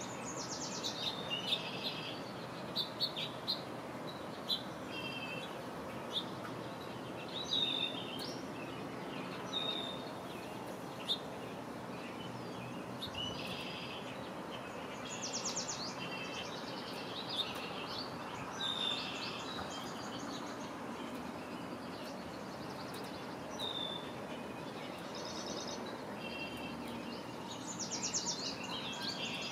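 Songbirds calling: many short high chirps and a few fast trills, one near the start, one about halfway and one near the end, over a steady background hiss.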